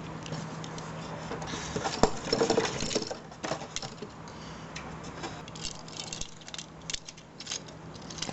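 Hard plastic parts of a G1 Transformers Hotspot figure clicking and rattling as it is twisted from fire engine into robot mode, with a sharp snap about two seconds in and a busy patch of clicks just after.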